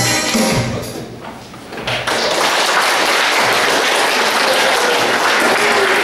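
Music fades out over the first second and a half, then an audience breaks into steady applause about two seconds in.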